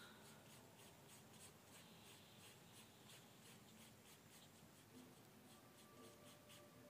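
Faint scratching of a pencil on drawing paper: short, irregular strokes, a few each second, as the hair of a portrait sketch is shaded in.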